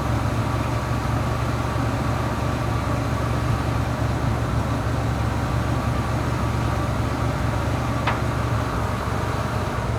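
Ford truck engine idling steadily, a low even rumble, with one brief click about eight seconds in.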